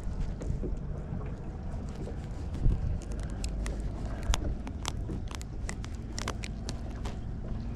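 Wind buffeting the microphone on a small boat, a steady low rumble, with a string of sharp irregular clicks and taps from handling gear between about three and seven seconds in.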